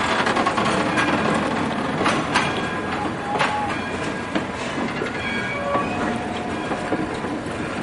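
Passenger coaches rolling past: a steady rumble of steel wheels on rail, with scattered sharp clicks and brief high-pitched wheel squeals.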